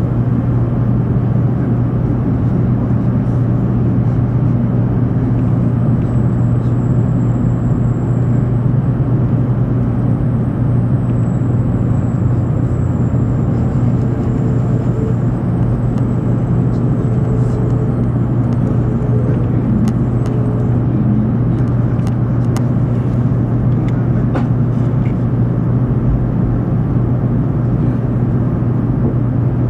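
Steady interior running noise of an N700-series 7000-subseries Shinkansen car moving slowly along the platform on arrival at a station: a deep hum with a faint high whine through the middle.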